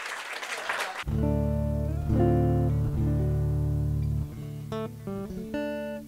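Applause for about a second, then a guitar comes in with a few strummed chords left to ring, changing chord several times.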